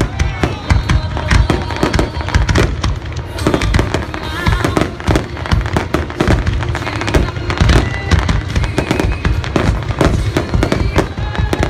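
Fireworks display finale: a dense, unbroken barrage of bangs and crackles, many shells going off each second.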